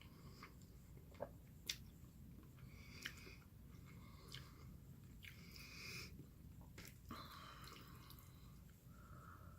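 Quiet close-up chewing and wet mouth smacks of a person eating, with a few sharp clicks, the two loudest in the first two seconds.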